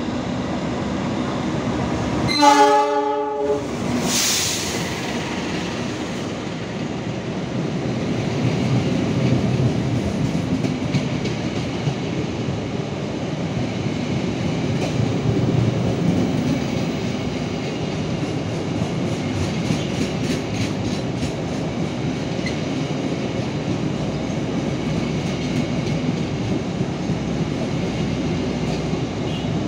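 A diesel locomotive's horn sounds one short blast about two and a half seconds in, followed by a brief hiss. The steady rumble and wheel clatter of the Argo Parahyangan's stainless-steel executive coaches rolling past alongside the platform then follows.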